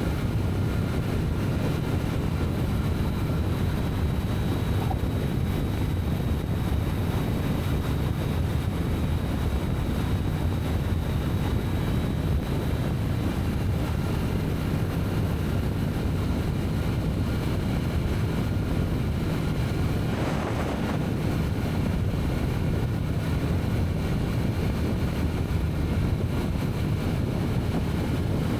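Steady wind buffeting the microphone over the running inline-four engine and road noise of a Kawasaki Z900 motorcycle cruising at an even speed, with no revving.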